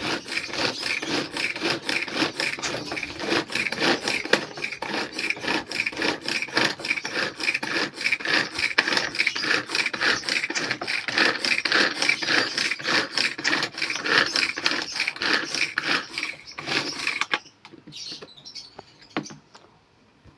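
Rhythmic rasping strokes of vegetables being worked by hand for bird soft food, about three a second, stopping abruptly about 17 seconds in.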